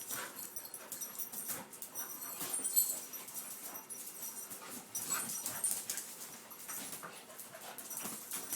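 Two puppies play-wrestling: irregular scuffling and clicking, with brief whimpers and panting.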